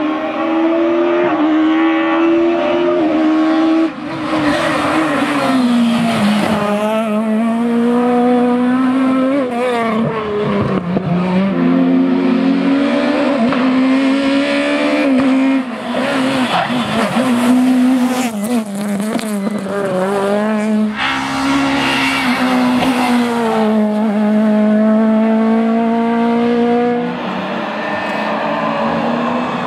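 Peugeot 306 Maxi rally kit car's high-revving four-cylinder engine being driven hard: revs climb and fall repeatedly, with sudden drops at gear changes or on lifting off a few times.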